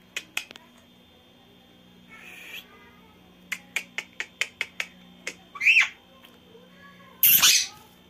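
Indian ringneck parakeets calling: a short call about two seconds in, a quick run of about eight sharp clicks, a pitch-bending chirp, then a loud harsh squawk near the end.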